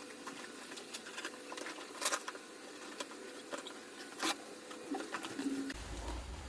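Scattered light clicks and taps of small objects being handled, the two sharpest about two seconds and four seconds in, over a faint steady hum; a low rumble comes in near the end.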